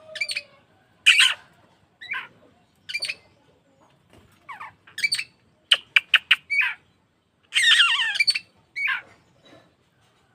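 Oriental magpie-robin (kacer) singing in short, separate phrases of whistled and harsh notes about a second apart, with a quick run of clicking notes around the middle and a longer warbling phrase about three-quarters through.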